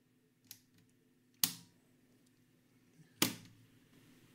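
Three sharp mechanical clicks from the controls of a Blaupunkt Arkansas tube radio being worked, a small one about half a second in and two loud ones about two seconds apart, over a faint steady hum. No station comes through on medium wave, because the tuning condenser is jammed.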